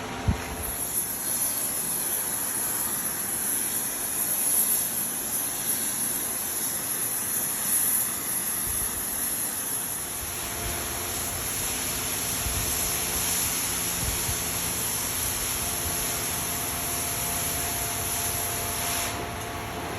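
Steel-cutting gas torch hissing steadily while it cuts. It comes on just after the start and shuts off about a second before the end.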